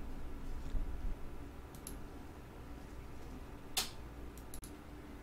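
A few sharp computer mouse clicks, sparse and irregular, the loudest about two-thirds of the way in, with soft low bumps about a second in over a faint steady hum.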